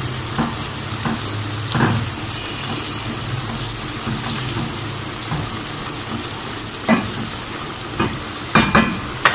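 Tomato-onion masala sizzling in a pot as a wooden spatula stirs it. Now and then the spatula knocks against the pot, a few times near the end.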